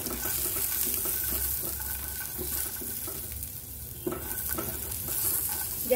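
Peanuts frying in a little hot oil in a nonstick pan, a steady sizzle under repeated strokes of a silicone spatula stirring and scraping them around. The stirring eases a little past halfway, then picks up again.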